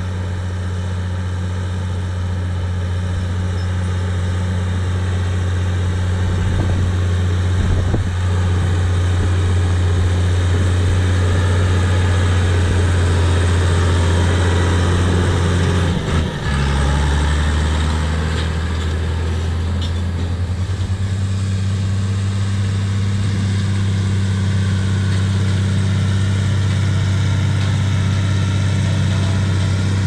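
Case IH 1455 XL tractor's six-cylinder turbo diesel running steadily under load while pulling a disc harrow through the soil. The drone dips briefly and drops lower about halfway through, then shifts again a few seconds later.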